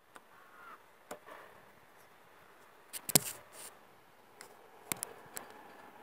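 Screwdriver tip clicking and scraping against an Audi A3's ignition switch where it mounts to the lock housing, while working it loose for replacement. A few sharp clicks, the loudest a quick cluster about three seconds in.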